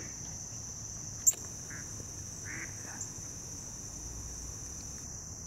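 Steady high-pitched chorus of insects trilling, with two faint duck quacks about two seconds in. A single sharp click about a second in is the loudest sound.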